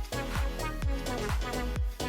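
Background music with a steady, fast drum beat, a little over two beats a second, under sustained melodic notes.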